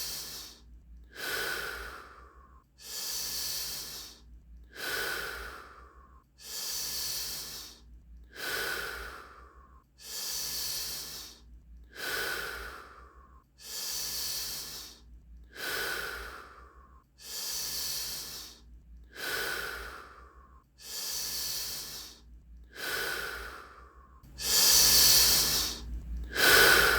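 A person doing Wim Hof power breathing: deep, paced breaths in and out through the mouth, an even rhythm of about one full breath every three and a half seconds. Near the end comes one louder, longer breath.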